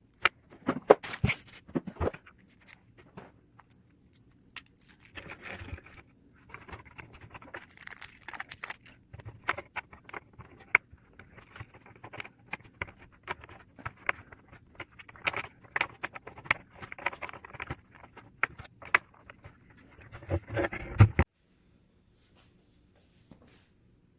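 Close handling noises of a digital bathroom scale and its packaging: irregular clicks, taps, rustling and scraping, which stop abruptly a few seconds before the end.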